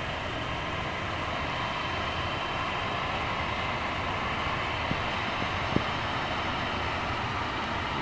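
Airbus A320 jet engines running as the airliner rolls along a rain-soaked runway toward and past the listener: a steady engine noise with a faint high whine, growing slightly louder. Two short clicks a little past halfway.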